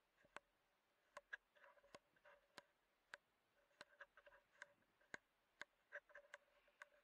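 Near silence, with faint, irregularly spaced clicks and ticks.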